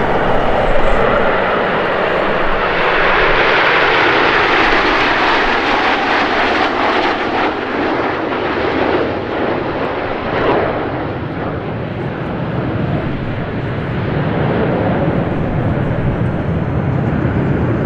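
Fixed-wing airplane engine passing by, rising to its loudest a few seconds in and fading away after about ten seconds.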